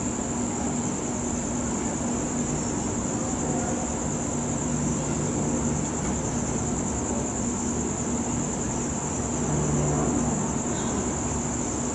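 Crickets chirping continuously in a steady high-pitched trill, over a low steady hum that grows slightly louder about ten seconds in.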